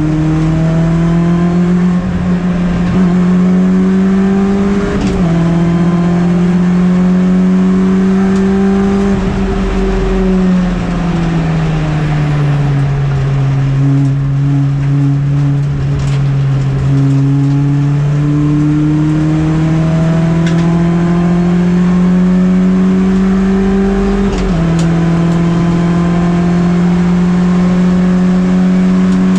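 A MINI race car's engine heard onboard at racing speed. It climbs in pitch under acceleration, with a quick drop at an upshift about five seconds in. It sinks over a few seconds from about ten seconds in while the car slows, stays low, then pulls back up to another upshift near twenty-five seconds.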